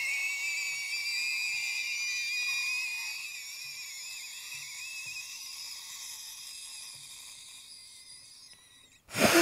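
Several high-pitched electronic tones sounding at once, wavering slightly and slowly fading away over several seconds. A sharp breath comes right at the end.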